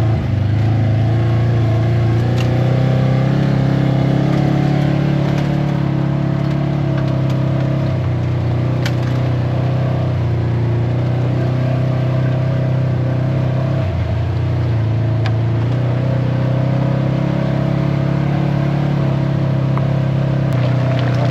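ATV engine running steadily under way on a trail, its pitch shifting a few times as the throttle changes.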